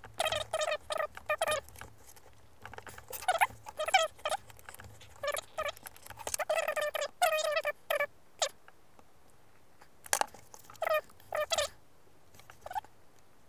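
Hobby knife blade scratching through thin box card along a steel rule on a cutting mat, in many short strokes in quick runs with pauses between. The strokes thin out to a few single scrapes in the last few seconds.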